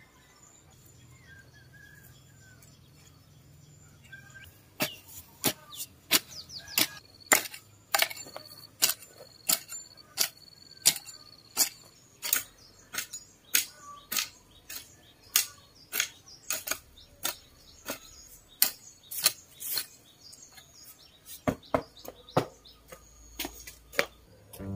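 Garden hoe chopping into loose, stony red soil: a steady run of sharp strikes, about two a second, starting about five seconds in and stopping a couple of seconds before the end. Birds chirp faintly before the hoeing starts.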